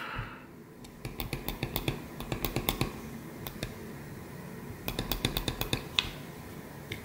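Small metallic clicks from a Spanish 1892 regulation revolver's action as the hammer and trigger are worked with the cylinder swung open. They come in two quick runs, about a second in and again about five seconds in: the open cylinder blocks the action, so the revolver cannot be cocked.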